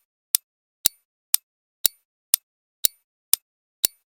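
Countdown timer ticking: sharp, evenly spaced clock ticks, two a second, with silence between them.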